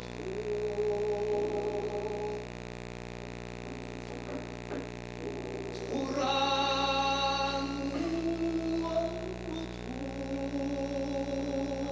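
Unaccompanied male voice singing long, held, wordless notes that slide between pitches, loudest and brightest about halfway through. A steady low electrical hum runs underneath.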